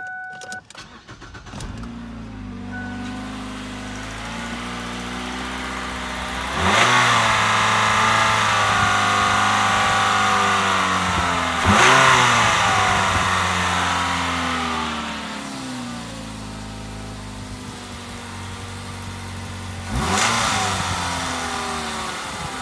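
Ford Fusion engine starting and idling with its serpentine belt removed, revved up and let fall back three times. No knocking is heard with the belt off, which points the noise at the belt-driven accessory pulleys or tensioner.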